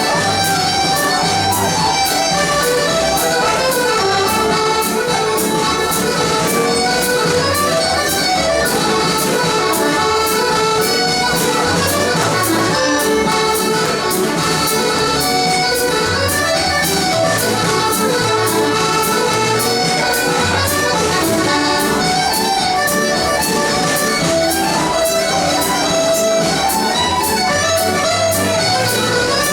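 Scottish country dance band playing dance music, led by accordion over a steady, even beat.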